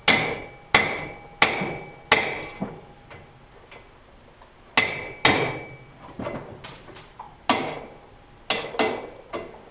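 Hammer blows on the steel motor-belt tensioning stud of a South Bend lathe drive, bending it slightly back so it fits. Sharp metallic strikes with a brief ring, four in quick succession, a pause, then a further irregular run of blows.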